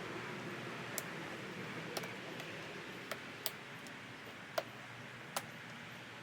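Plastic retaining tabs clicking as they are pushed onto a Jeep Wrangler JK fender: about six short, sharp clicks at uneven intervals over a steady background hiss.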